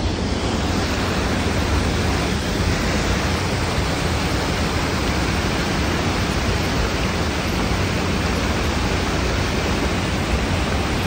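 Steady rush of fast-flowing creek water tumbling through a small cascade, an even, unbroken noise.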